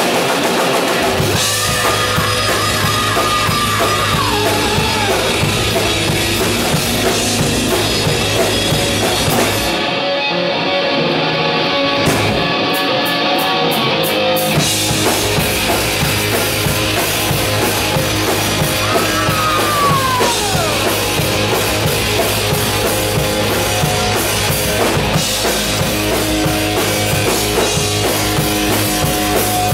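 Live hard rock band playing an instrumental passage on two electric guitars, bass guitar and drum kit, with bent lead-guitar notes twice. The cymbals and bass drop out for a few seconds about ten seconds in, then the full band comes back.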